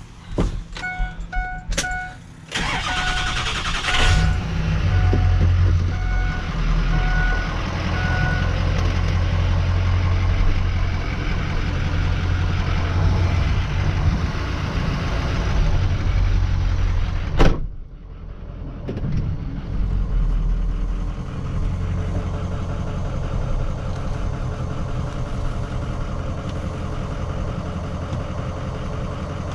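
Truck engine cranking and catching about two and a half seconds in, then running steadily. A dashboard warning chime beeps repeatedly during the first eight seconds or so. A single sharp knock comes about two-thirds of the way through.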